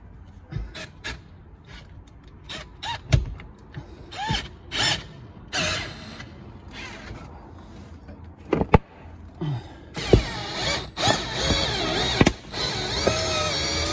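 Windshield cut-out fiber line being drawn through the urethane adhesive bead by a winding tool, squeaking and creaking in short bursts, then a louder, steadier squeal from about ten seconds in.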